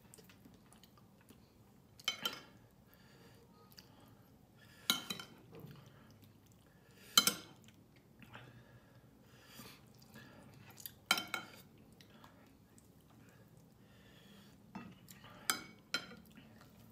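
Metal spoon clinking against glass dishes as food is scooped: six or so sharp, short clinks a few seconds apart.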